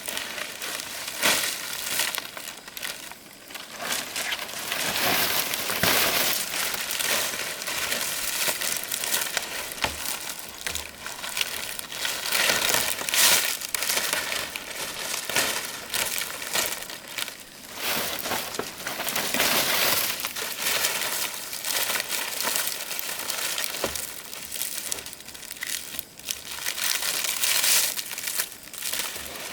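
Dry palm leaves rustling and crinkling as they are handled, with irregular crackles throughout.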